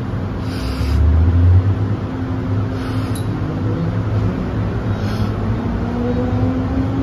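MTR first-generation M-train (Tsuen Wan Line) pulling away from a platform: a low rumble about a second in as it starts to roll, then the traction whine, the 'ghost howl' these trains are known for, rising steadily in pitch as the train picks up speed.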